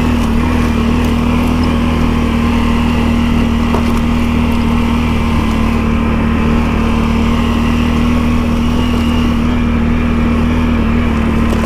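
An ATV's engine running at a steady speed while being ridden, its pitch holding level with no revving.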